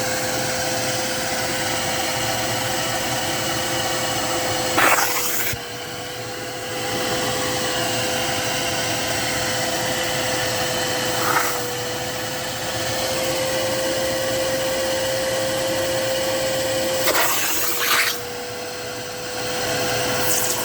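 Kärcher SE 4 spray-extraction vacuum cleaner running steadily with a constant motor whine. The level drops twice as the load on the motor changes, and a few short, sharp noises come through.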